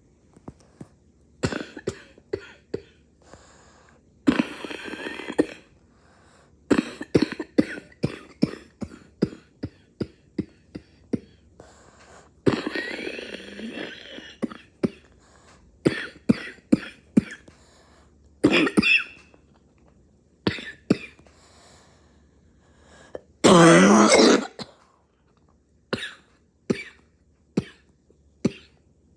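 A person coughing in repeated fits of short, sharp coughs, with a couple of longer, drawn-out rasping stretches between them. The loudest is one long, harsh hack about three-quarters of the way through.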